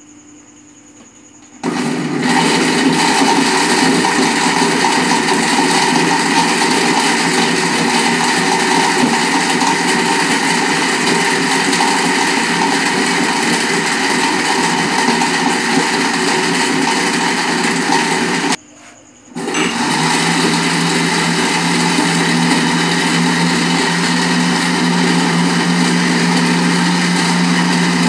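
Electric countertop blender running, blending dates, milk and ice cubes into a milkshake with a loud, steady whir. It starts about two seconds in, stops for under a second about two-thirds of the way through, then starts again and runs on.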